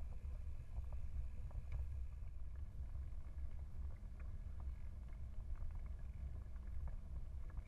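Steady low rumble of bicycle tyres rolling on a paved path, mixed with wind on the microphone, with faint scattered ticks and rattles from the moving bike.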